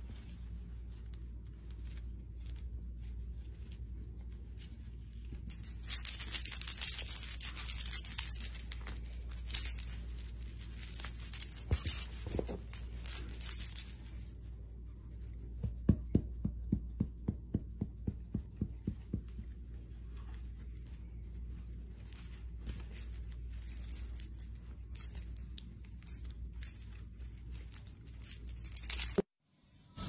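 A small toy ball jingling and rattling as a white-bellied caique shakes and rolls it with its feet, in a loud spell from about six seconds in, a quicker run of clicks after that, and another jingly spell near the end. A steady low hum lies underneath, and the sound cuts off abruptly just before the end.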